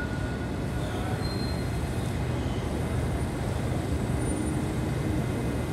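Steady low rumble and hum of electric trains standing at a station platform, with the station hall's background noise.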